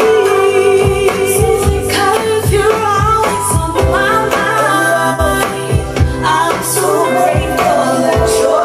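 Pop song playing: a singing voice over a steady beat of about two thumps a second.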